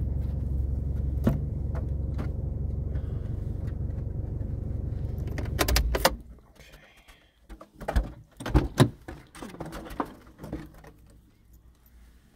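Car engine running, heard from inside the cabin, with a steady low rumble that stops abruptly about six seconds in as the engine is switched off. Then come a series of sharp clicks and knocks with keys jangling.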